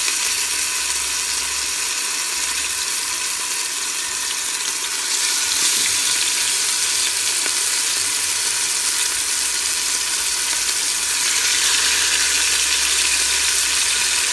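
Seasoned oxtail pieces sizzling as they fry in hot oil in a pressure cooker pot, a loud steady sizzle. It grows louder about five seconds in and again near the end.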